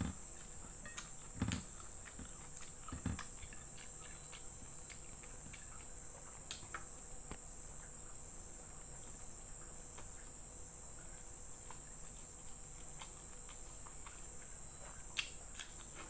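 Someone eating fried chicken liver and rice by hand: a few wet chewing and lip-smacking sounds, mostly in the first few seconds and again near the end. A steady high-pitched insect chirring runs behind it.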